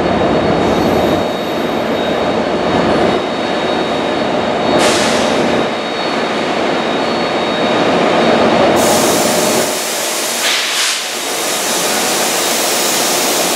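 NJ Transit Arrow III electric multiple-unit railcar moving along the platform under the train shed, a dense steady run of motor and wheel noise growing nearer. A steady hiss joins about nine seconds in.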